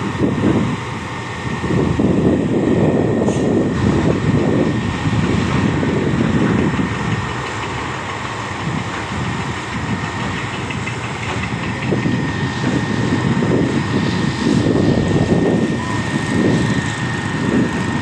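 Truck-mounted concrete boom pump running its diesel engine while the hydraulic boom is moved. A dense rumble swells and eases, and a thin, steady high whine runs along with it.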